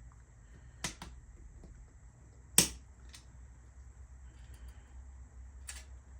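A few scattered sharp clicks and knocks from bike parts being handled on a work surface, the loudest about two and a half seconds in.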